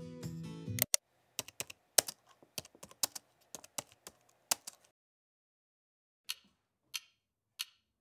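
Computer keyboard keystrokes: a quick, uneven run of typing for about four seconds, then a pause and a few single key presses spaced well apart. Acoustic guitar music plays at the start and stops abruptly about a second in.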